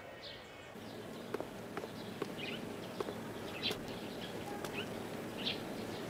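Small birds chirping, short high calls about once a second, over a steady outdoor background with scattered light taps and clicks.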